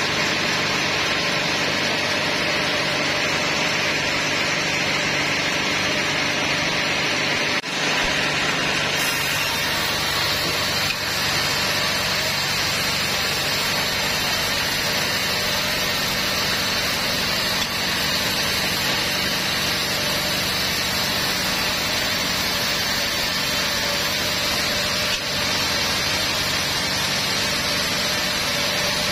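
Large band sawmill running and cutting through a teak log: a steady hiss of the blade in the wood over the machine's constant hum, with a brief break about eight seconds in.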